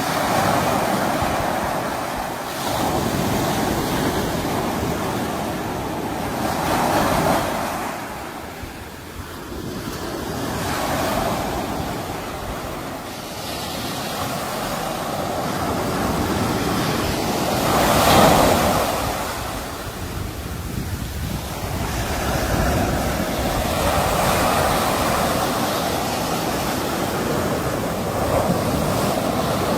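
Sea waves breaking and washing on the shore, a steady rush that swells and ebbs in slow surges every few seconds, one louder surge a little past the middle.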